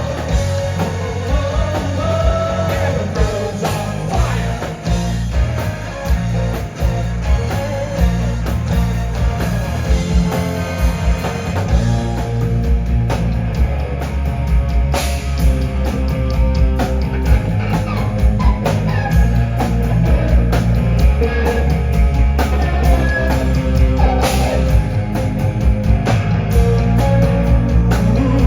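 A rock band playing live: electric guitars, bass and drums, with a voice singing over them.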